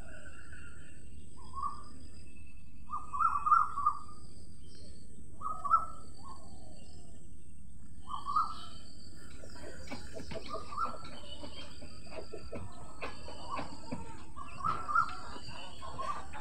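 Birds calling outdoors: short calls repeating every second or two over a steady background with a faint, constant high hiss. From about halfway in, the calls grow busier and are mixed with short clicks.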